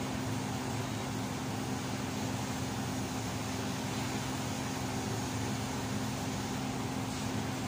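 TIG welding setup running: a steady electrical hum with an even hiss over it, unchanging throughout.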